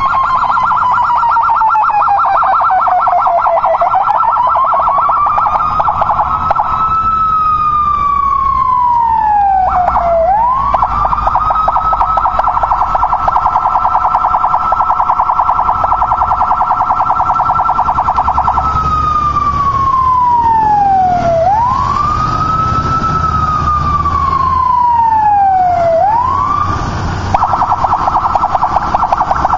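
Police motorcycle siren, switching between a slow wail that rises and falls over a few seconds and stretches of rapid warble, with a low vehicle rumble underneath.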